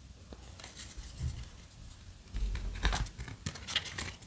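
Trading cards being handled and slid against each other in the hands: quiet at first, then several short scrapes and flicks from about halfway through, with low bumps of handling.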